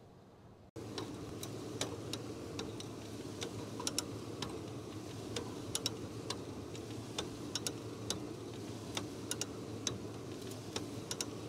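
Hand come-along ratchet clicking in irregular runs as it is cranked to winch a stuck truck, over a steady low hum; the clicking starts abruptly about a second in.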